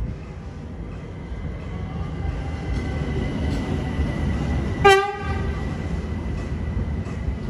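ÖBB class 4020 electric multiple unit pulling into the platform, its low rumble growing louder as it approaches. About five seconds in it gives one short blast on its Makrofon horn.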